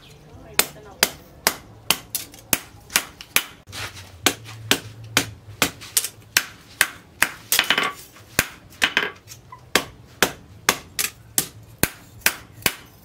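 Hand hammer striking red-hot steel from a disc brake rotor on a steel anvil, forging a knife blade. The sharp metal-on-metal blows come in a steady rhythm of about two a second.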